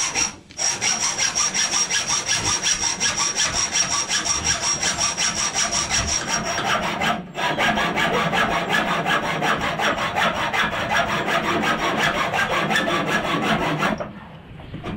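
Hacksaw sawing with fast, even back-and-forth strokes. It breaks off briefly near the start and again about seven seconds in, then stops near the end.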